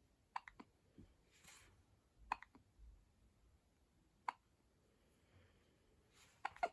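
Baby hiccuping: four short, sharp hiccups about two seconds apart, the last one doubled. Soft breaths can be heard between them.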